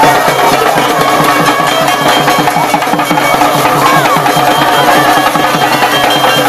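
Traditional lathi khela accompaniment: a dhol drum beaten in a fast, steady rhythm of about four strokes a second, with steady droning tones held over it.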